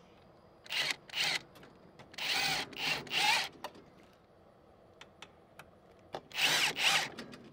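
Cordless drill driving self-tapping screws through a metal hinge bracket into a wood panel, in several short bursts of the motor with pauses between. Each burst is a whine that rises and falls in pitch.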